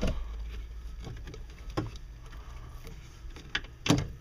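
Scattered knocks and clunks from hands handling a rubber coolant hose and its fittings in a boat's engine bay, with the loudest knock near the end, over a low steady hum.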